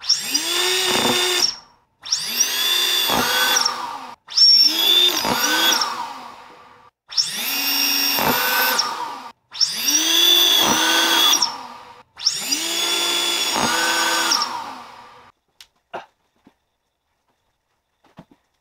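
Homemade Nerf ball blaster with three brushless motors running in six bursts of one to three seconds, each opening with a rising whine as the motors spin up and then holding a steady multi-tone whine while it fires. A few faint clicks follow near the end.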